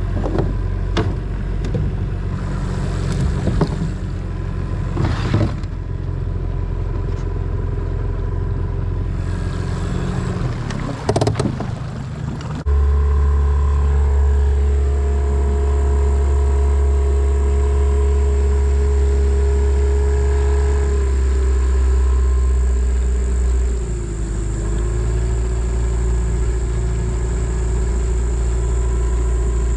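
Small boat's outboard motor running. In the first half, knocks and clatter of rope and gear being handled over a lower motor hum; then the motor noise jumps louder and runs steady as the boat travels, its pitch dipping slightly twice.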